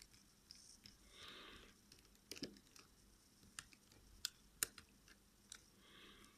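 Near silence with a handful of faint, sharp clicks spread irregularly through it: a small precision screwdriver and tools touching the screws and metal parts inside a smartphone as its motherboard is unscrewed.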